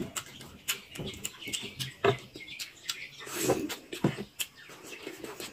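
Close-up eating sounds: wet chewing and lip smacks while eating chicken curry by hand, a run of short clicks with a few louder smacks.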